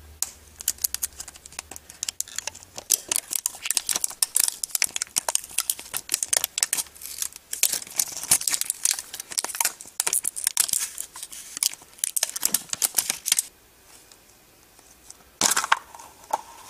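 Thin plastic seal strip crinkling and crackling as it is picked at, peeled and torn off a plastic surprise egg. After a short quiet gap, a sharp plastic snap as the egg's two halves are twisted apart.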